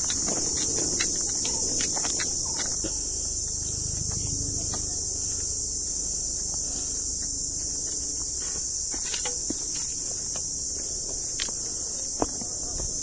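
Steady, high-pitched drone of insects, with scattered footsteps on a dry, leaf-strewn dirt trail.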